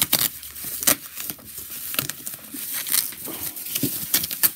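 Plastic bubble wrap crinkling and rustling as it is pulled off and unwrapped by hand, with irregular sharp crackles, the loudest about a second in and again near the end.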